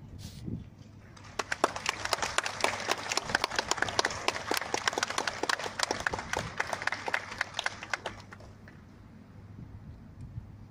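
A crowd applauding with many hands clapping, starting about a second in and dying away after about eight seconds.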